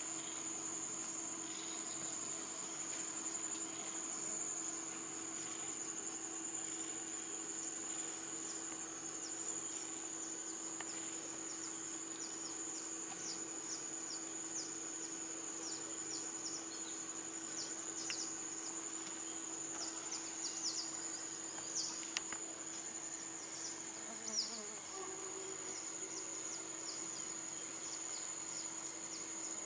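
Steady high-pitched chorus of rainforest insects, with many short falling chirps over it in the second half and a couple of faint clicks.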